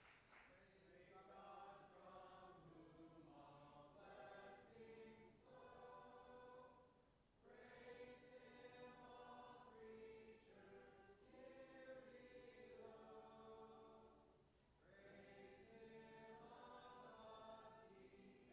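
A congregation singing a slow hymn together, faint in the recording, in long phrases with short pauses for breath about seven and fifteen seconds in.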